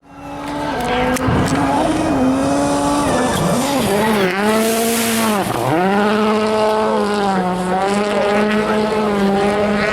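World Rally car engine at high revs, its pitch rising and falling as the driver works the throttle, with one sharp dip about five and a half seconds in before it settles and holds steady; a hiss of tyre noise rises around five seconds.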